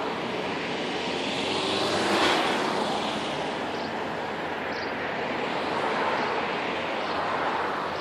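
Steady engine and traffic noise, swelling to its loudest a little after two seconds in, with a falling pitch as a vehicle passes, then settling back.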